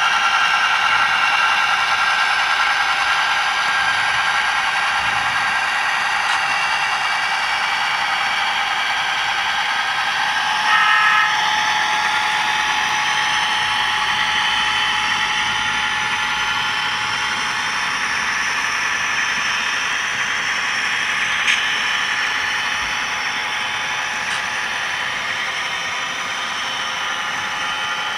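HO-scale model diesel locomotive's Soundtraxx Tsunami sound decoder playing a running diesel engine sound through its small onboard speaker. The sound is steady, with a short louder tone about eleven seconds in and a single click later on.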